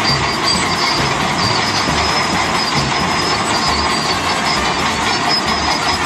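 Vintage pull-type combine harvester running while it cuts wheat, its reel, cutter bar and threshing works making a steady, dense mechanical noise that does not let up.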